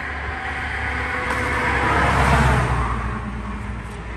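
A road vehicle passing close by: its noise swells to its loudest about halfway through and then fades, over a steady low hum.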